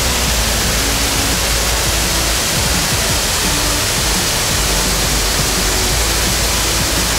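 Waterfall on a mountain stream: a loud, steady rush of falling water, with faint music underneath.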